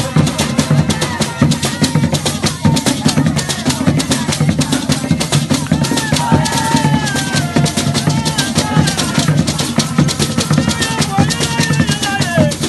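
Ensemble of traditional Ghanaian standing drums playing a fast, dense dance rhythm of many strokes a second, with a wavering melody line, voice or instrument, riding over the drums in the second half.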